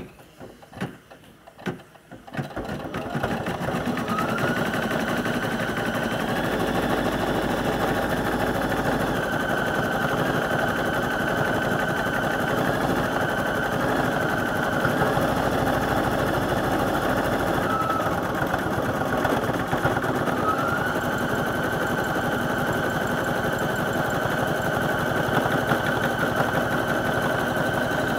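Home embroidery machine stitching at speed: a few separate clicks at first, then about two seconds in the rapid, steady needle rattle starts. A high motor whine rises as it speeds up, at about four seconds and again around twenty seconds, then holds steady.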